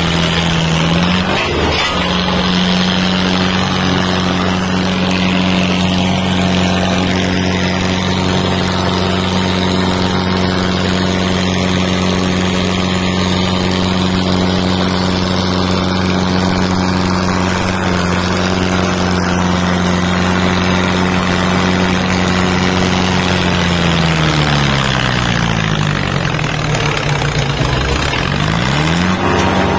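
Diesel tractor engine running hard at steady high revs in a tractor tug-of-war. About three quarters through the revs sag to a much lower pitch, then climb back up near the end.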